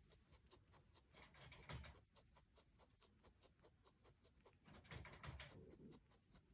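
Faint, rapid metallic ticking, several clicks a second, with two louder scraping rustles, one about a second in and one near the end.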